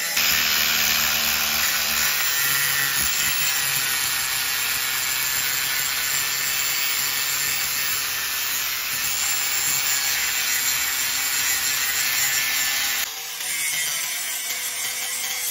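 Angle grinder running with its disc cutting and grinding into leaf-spring steel, a loud steady high-pitched grinding. The sound briefly drops and changes about 13 seconds in.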